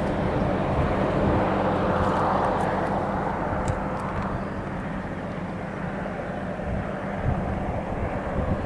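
A vehicle's steady rushing noise with a low hum, slowly getting quieter.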